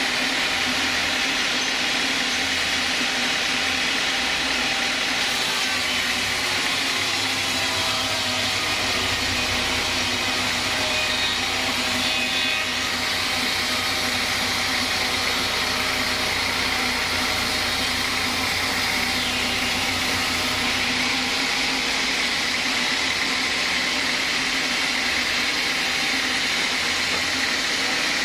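Band sawmill running steadily, its blade cutting lengthwise through a large log in one continuous pass.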